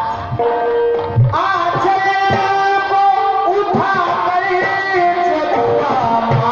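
Singing with drum accompaniment: a voice holds long, wavering notes over low, recurring drum beats.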